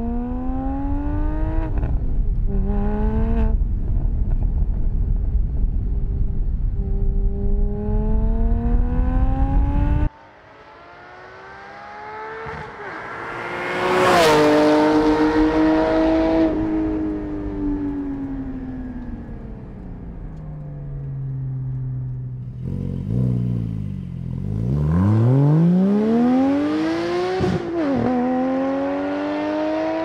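Porsche 718 GT4's flat-six engine through a Soul Performance race exhaust, pulling hard under aggressive throttle, its pitch climbing through the revs with quick upshifts. Loudest at a peak about halfway, after which the pitch falls away; it then sinks to low revs and climbs steeply again with another upshift.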